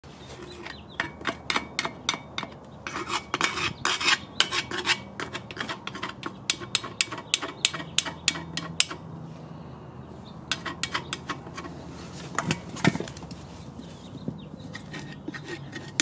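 A screwdriver tip scraping and chipping old gasket material off the flange of an aluminium Honda D16A6 intake manifold: a rapid, irregular string of sharp metal scrapes and clicks, with a short pause about nine seconds in and a louder knock near the end.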